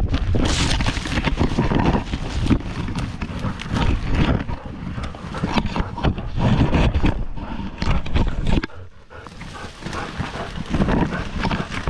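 Sound picked up by a camera strapped to a running dog's harness: the dog panting, with branches and grass brushing and scraping over the camera and the harness jostling with each stride in a dense, irregular clatter. It drops quieter for about a second around three-quarters of the way through.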